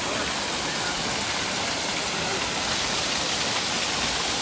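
Waterfall pouring close by: a steady, dense rush of falling water.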